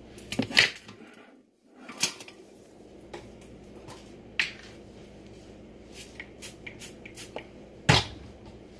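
Scattered knocks and clicks of dishes and utensils handled on a kitchen counter: a loud clatter near the start, single knocks about two and four and a half seconds in, a run of light clicks, and a sharp knock near the end, over a steady low hum.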